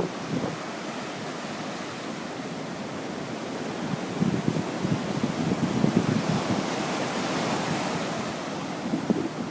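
Surf breaking and washing up the shore, with wind buffeting the microphone; a wave swells to a louder hiss about two-thirds of the way in, then recedes.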